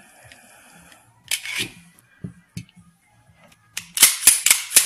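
Handling of a steel Ruger SR1911 pistol and its hard case: a short scraping rustle, a few light ticks, then a quick run of sharp metallic clicks near the end.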